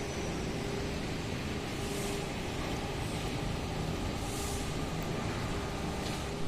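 Steady vehicle and traffic rumble with a few brief high hisses.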